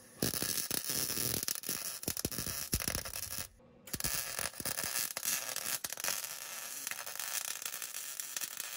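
Wire-feed welder arc crackling steadily as a bead is run on a steel rock slider. The arc stops for a moment about three and a half seconds in, then strikes again and carries on.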